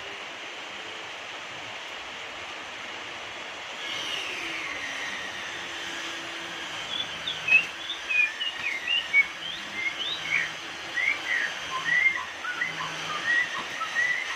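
White-rumped shama singing: a drawn-out gliding whistle about four seconds in, then a quick run of short, varied chirps and whistled notes over a steady background hiss.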